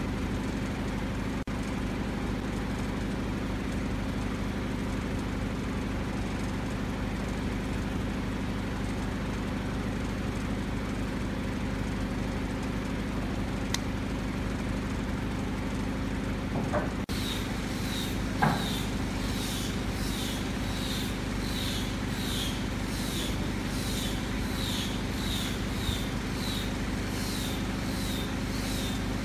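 Steady low mechanical hum. About halfway through, a regular series of short high chirps begins, roughly two a second.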